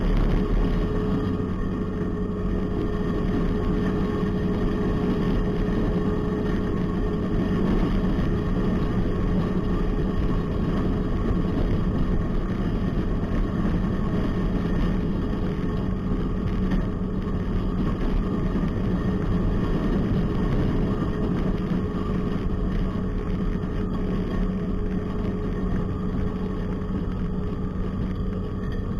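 Cat wheeled skid steer's diesel engine running steadily, with an even low hum and a faint steady whine.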